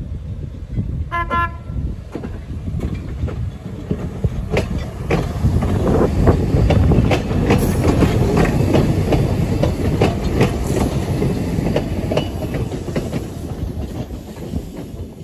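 Passenger train gives a short horn toot, then rolls past at close range with its wheels clicking over the rail joints. The clicking and rumble build as the cars go by, then fade near the end.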